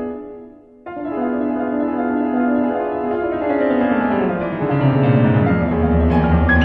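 Piano music: a chord fades, another is struck about a second in, then a run of notes steps downward into the low register, growing louder toward the end.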